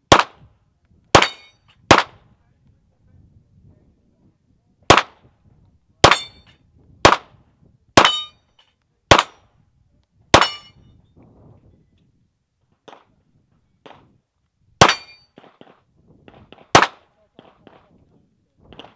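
Pistol shots on a shooting range: about eleven loud, sharp reports, mostly about a second apart, with a pause in the middle. Fainter shots from farther off sound in between.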